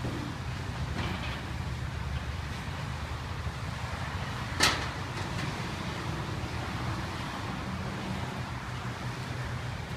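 Steady low rumble of road vehicles, with cars passing on the street. One sharp knock stands out about halfway through.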